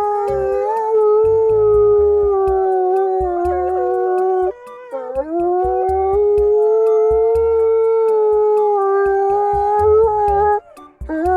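An animal howling: long, nearly steady-pitched howls, the first breaking off about four and a half seconds in, the second ending shortly before a rising howl begins near the end, with low thumps underneath.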